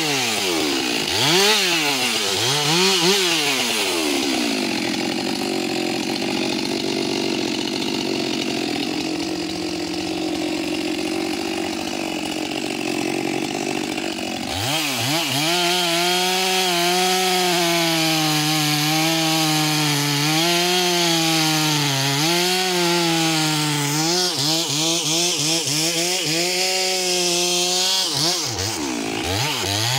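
Stihl MS 462 two-stroke chainsaw cutting through a walnut log. It revs up and down a few times at the start, then its note sits lower and steady for about ten seconds while the chain is deep in the wood. About halfway through it rises to a higher, wavering pitch for the rest of the cut, with a brief dip near the end.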